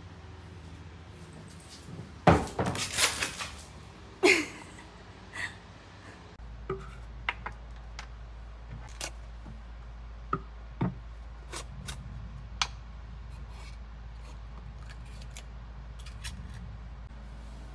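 A burst of loud clattering knocks about two seconds in and a sharp knock just after four seconds, then a low steady hum with scattered light clicks and taps as a plastic water bottle, its screw lids and a glass jar are handled on a kitchen counter.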